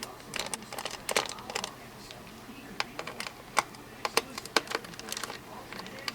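Irregular sharp clicks and taps, a few a second, of hands working on a laptop's plastic parts and keys.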